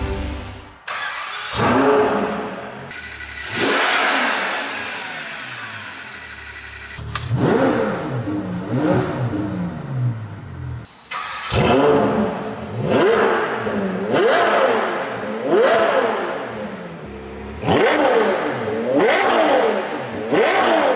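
Ferrari 812 Competizione's naturally aspirated 6.5-litre V12 revved while standing in park. A long rise and slow fall early on is followed by a string of quick rev blips, the pitch climbing and dropping back each time.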